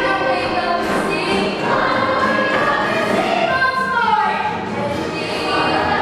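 Children's theatre cast singing together as a chorus, several voices at once with pitches that slide and change.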